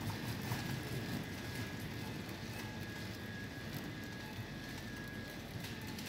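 Shop background noise: a steady hum and hiss with a faint, steady high-pitched tone and a few soft clicks.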